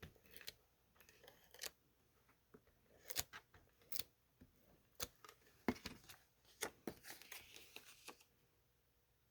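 Faint handling of paper and cardstock: scattered light taps and clicks as sheets are turned over and set down, with a longer rustle about seven seconds in.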